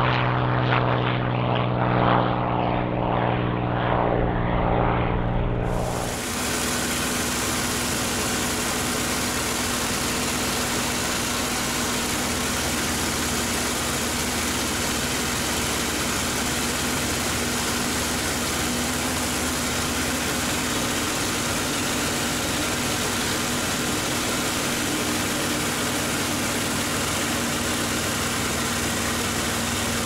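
Packard Merlin V-1650-7 V12 of a P-51D Mustang climbing away after takeoff, heard from the ground, its engine note wavering in level. About six seconds in the sound cuts to inside the cockpit: a steady engine drone under a loud, even rush of airflow, with a steady hum.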